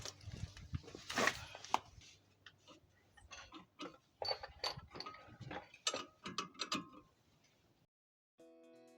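Hand tools working on the brake hardware: irregular metallic clicks and clanks, clustered most thickly in the first two seconds and again from about four to seven seconds in, stopping shortly before the end.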